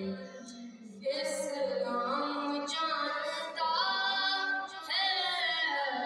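A boy's unbroken voice singing a devotional Urdu kalaam, holding long notes that glide up and down, softer at first and swelling about a second in.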